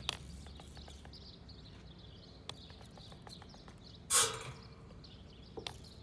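Trigger spray bottle misting soapy water onto the weld seams of a pressurized welded steel tank to check for leaks: one short, loud spray about four seconds in and a fainter one near the end.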